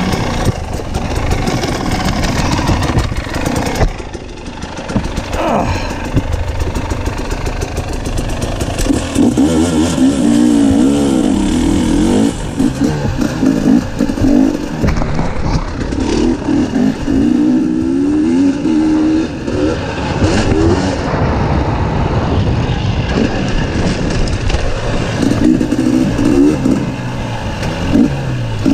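Dirt bike engine revving up and down while riding a trail, its pitch rising and falling again and again, with a brief easing off a few seconds in.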